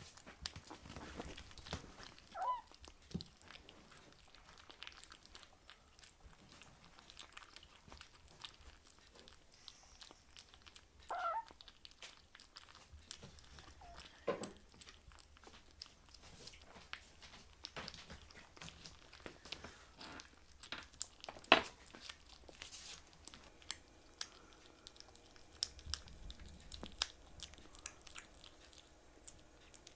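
Two kittens eating from ceramic bowls: soft chewing and crunching with many small scattered clicks. Two brief high-pitched squeaks come about 2 s and 11 s in, and one sharp click about 21 s in is the loudest sound.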